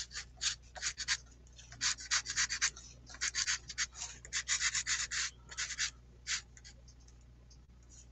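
Pastel stick scratching across paper in a rapid run of short strokes, stopping about six seconds in.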